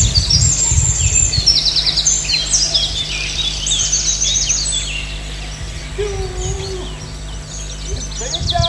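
Birdsong sound effect marking daybreak: many birds chirping and trilling in quick high runs, thinning out in the second half, over a steady low hum.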